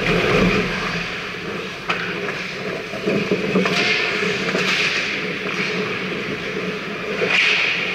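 Ice hockey played close by: skate blades scraping and carving the ice in hissy swells, with a few sharp clacks of sticks and puck, the first about two seconds in, over a steady low hum.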